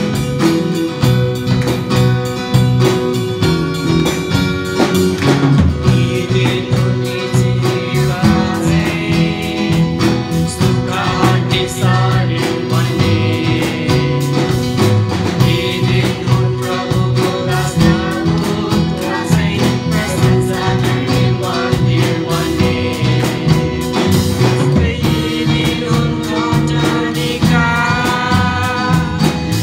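Live worship band playing a Christian song in Nepali: a steel-string acoustic guitar strummed over drums, with a man and women singing together from about six seconds in.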